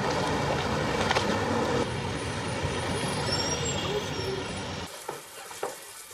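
City street traffic: cars and trucks running past in a dense, steady noise that stops abruptly about five seconds in. A few soft knocks follow near the end.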